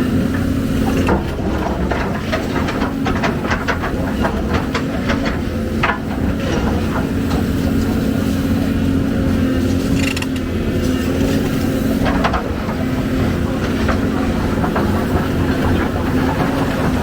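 Heavy excavator's diesel engine running steadily, with a quick run of metallic clanks and rattles a couple of seconds in and a few more knocks past the middle.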